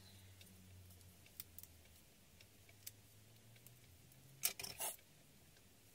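Faint clicks and light taps of paper pieces being handled on a cutting mat, with a short cluster of crisp paper sounds about four and a half seconds in, over a low steady hum.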